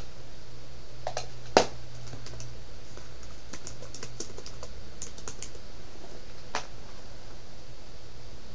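Typing on a computer keyboard: a few scattered key clicks, one louder click about a second and a half in, then a quick run of keystrokes around the middle.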